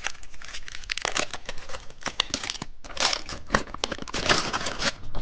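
Crinkly plastic candy wrapper being crumpled and torn open by hand, a dense run of crackles with a brief pause in the middle.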